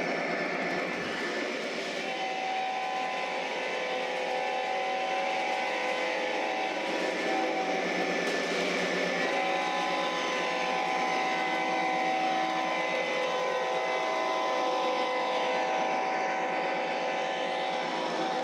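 MTH Premier O-scale CSX AC4400CW model locomotive running, its Proto-Sound 3.0 speaker playing diesel running sounds with long blasts of a K5LA air horn, over the rumble of wheels on the track. The horn comes in about two seconds in, breaks off briefly a little before halfway, then sounds again almost to the end.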